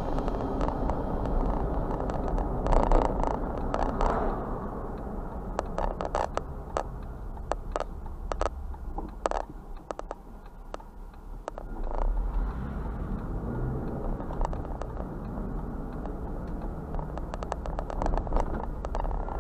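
A car driving, heard from a dashcam inside the cabin: a steady low road and engine rumble with scattered clicks and rattles.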